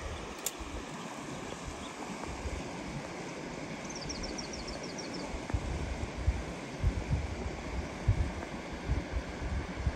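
Creek water running steadily. Near the middle a small bird gives a short trill of about ten quick high notes, and in the second half there are low bumps on the microphone.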